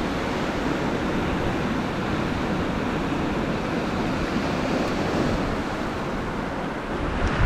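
Steady sea surf and wind buffeting the microphone, with a single brief knock near the end.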